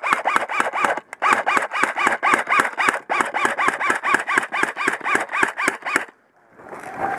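Airsoft rifle firing rapid strings of shots, about seven a second, each shot a sharp crack with a short whine. There are three long bursts with brief breaks between them, and the firing stops about six seconds in.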